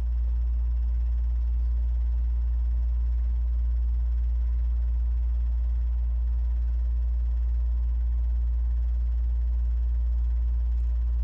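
A loud, steady, unchanging low hum.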